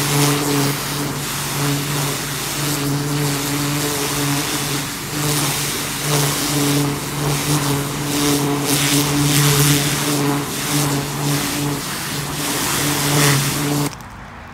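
Pressure washer running, with a steady motor hum under the hiss and spatter of its wand's water jet blasting weeds and soil out of a flower bed. The sound cuts off suddenly near the end.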